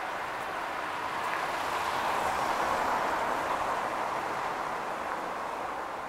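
A vehicle passing along the street, its noise swelling to a peak about halfway through and then fading; no clock chime sounds.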